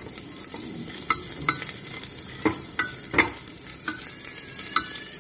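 Cumin, ginger and green chilli sizzling in hot ghee in a pressure cooker, a steady high hiss, with a spatula stirring and clicking against the pot about seven times.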